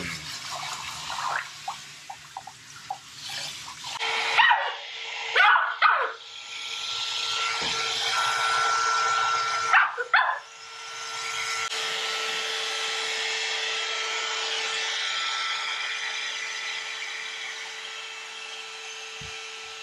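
Shiba Inu puppy yelping and whining a few times, over a steady mechanical whir with a constant hum that starts about four seconds in.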